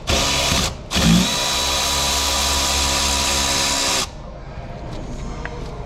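Power tool running a water pump bolt out. It gives a short burst, then runs steadily for about three seconds and cuts off suddenly.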